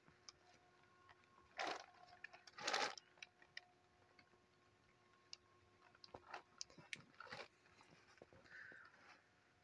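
Quiet, broken by two short rustles in the first few seconds and scattered clicks and ticks later on: handling noise from a phone being carried while filming.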